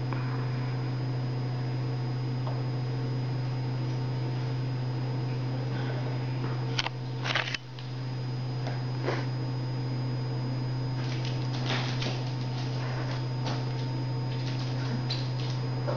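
A steady low mechanical hum with a faint high whine, like an appliance motor running, broken by a few light taps and clicks about halfway through and again near the end.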